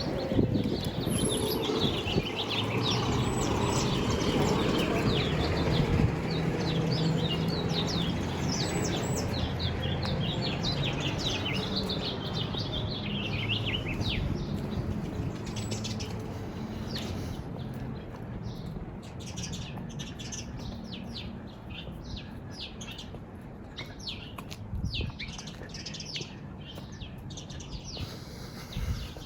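Small birds chirping and twittering: a dense run of quick calls through the first half, thinning to scattered chirps later. Low steady tones hum underneath during the first half.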